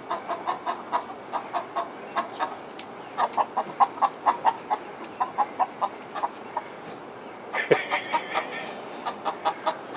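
Chickens clucking: a steady run of short, quick clucks, a few each second, growing louder for a moment near the end.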